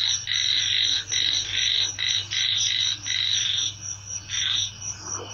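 A frog calling over and over in quick succession, each call about half a second, for the first three and a half seconds, then once more after a short pause. Under it runs a fast, even, very high pulsing from night insects.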